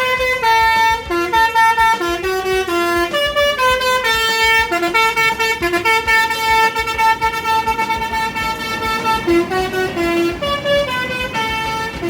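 A bus's basuri telolet horn, a multi-tone musical air horn, playing a tune of stepped notes, some short and some held for about a second, loud throughout.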